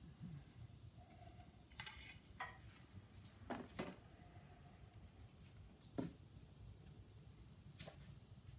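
Faint handling noise: a few light clicks and short rustles as a metal lid-support tube and a paper shop towel are handled and wiped, over near silence.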